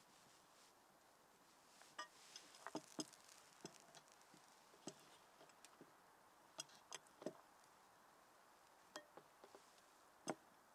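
Faint, scattered clicks and knocks of cast-iron sandwich irons handled on a wooden plank table, with the loudest knock near the end.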